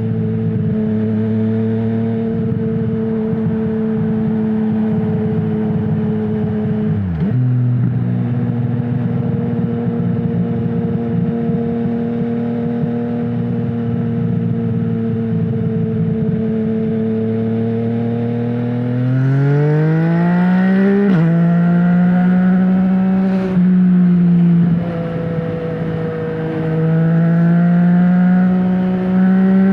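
Yamaha MT-09's three-cylinder engine through an Akrapovic full-system exhaust with no dB killer, running at a steady cruising note with a brief dip about a quarter of the way in. About two-thirds in it revs up, its pitch rising, drops sharply at a gear change, then dips and climbs again.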